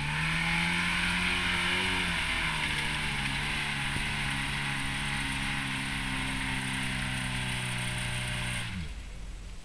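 Geo Tracker's engine revving high and held there, its pitch dipping once about two seconds in, with a steady hiss over it. The engine then drops away and stops suddenly near the end.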